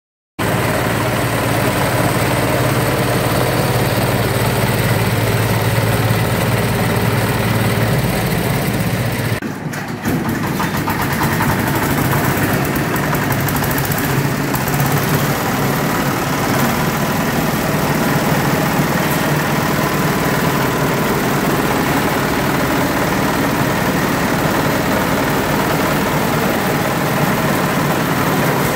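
Several grass chopper machines driven by small stationary engines, all running together in a steady, loud mechanical din, with a brief dip about nine and a half seconds in.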